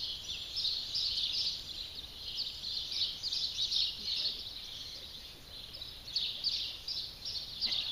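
Many small birds chirping and twittering without a break, high-pitched, thinning a little for a moment about five seconds in.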